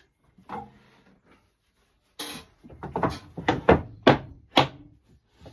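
A rustling scrape, then about five sharp knocks on wood in quick succession: a glued-up table part being tapped back into line in its clamps.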